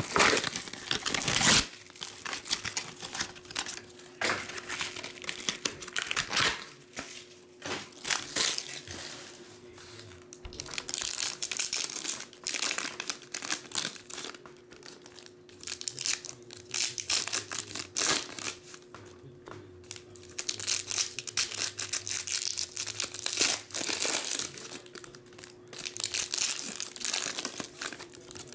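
Foil trading card pack wrappers and plastic wrap crinkling and tearing in irregular clusters as packs of baseball cards are opened by hand.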